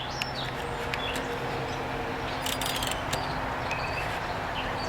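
Steady background hiss with faint bird chirps, and a few light clicks from handling the typewriter, a quick cluster of them about two and a half seconds in.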